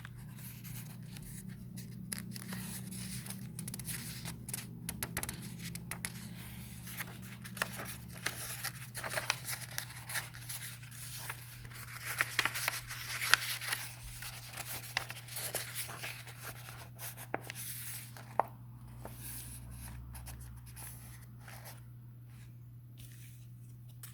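Paper being handled close to the microphone: rustling and crinkling with scattered small clicks, busiest about halfway through.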